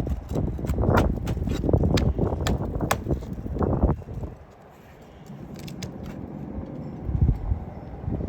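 Roof shingle repair work: a quick run of scrapes, clicks and knocks as shingles are worked loose to get at the nails, stopping suddenly about four seconds in, followed by quieter scuffing and a couple of soft knocks.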